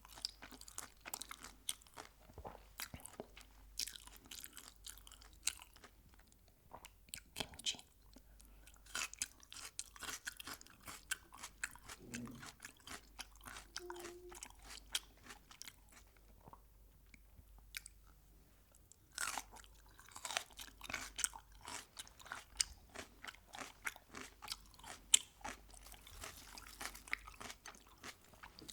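Close-miked chewing of crisp fried chicken: rapid crackling crunches of the coating between the teeth, with a short lull about two thirds through before a fresh burst of crunching.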